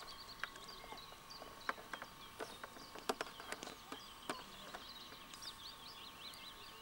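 Small songbirds singing, a stream of quick, high, wavering chirps, with several sharp clicks scattered among them.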